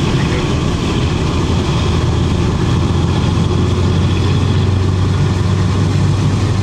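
Cab of a Class 52 'Western' diesel-hydraulic locomotive on the move: its twin Maybach MD655 diesel engines running with a steady, loud drone. A low hum in the drone grows stronger a couple of seconds in.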